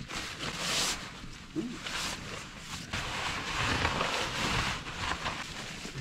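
Nylon sleeping bags and padded gear rustling as they are handled and sat on, in uneven swells of swishing.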